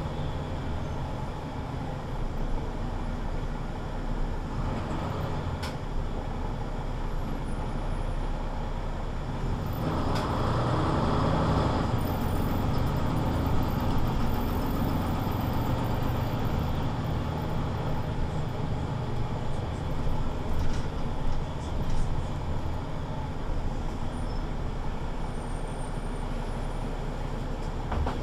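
Mercedes-Benz Citaro C2 city bus with a Voith automatic gearbox driving along, heard from inside: steady engine and road noise that swells for a couple of seconds about ten seconds in, as if accelerating.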